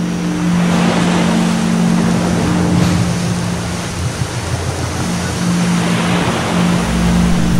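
Ocean surf rushing and washing, with a steady low drone held underneath.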